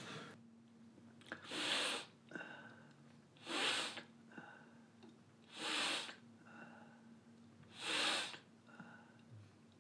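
An ill elderly man's heavy, laboured breathing: four loud breaths about two seconds apart, each followed by a fainter one.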